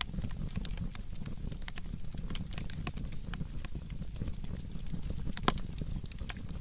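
Burning firewood crackling and popping: scattered sharp pops over a steady low rumble of the fire, the sharpest pop about five and a half seconds in.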